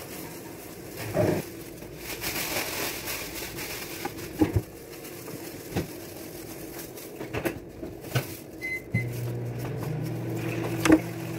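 A knife tapping and scraping on a tray while cinnamon dough is cut into strips and handled with plastic-gloved hands, giving light irregular knocks. The sharpest knock comes near the end. About nine seconds in, a steady low appliance hum starts.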